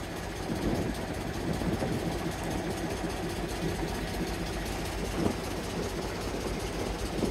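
The small boat's little engine running steadily as the boat moves across the water.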